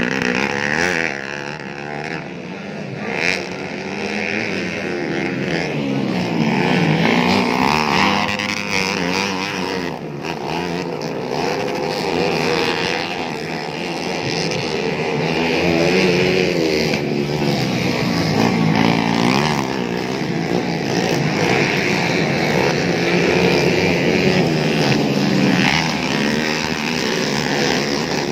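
Several motocross dirt bike engines revving, their pitch rising and falling constantly as the bikes climb and accelerate.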